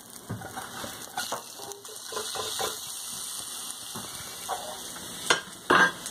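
Breaded tilapia fillets sizzling in oil in a nonstick frying pan as a spatula scrapes and turns a fillet. Two sharp, loud knocks come near the end.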